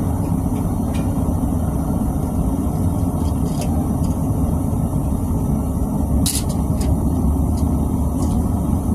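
Propane melting furnace burner running steadily, a loud low rushing noise, with a few light metal clinks from crucible tongs, the sharpest about six seconds in.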